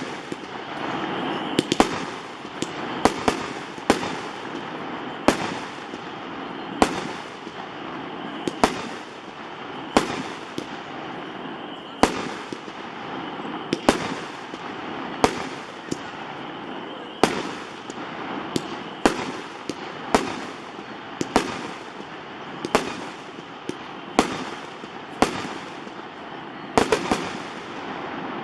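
Tannerite M25 Air Burst aerial repeater firing a long series of sharp bangs, roughly one every second or so.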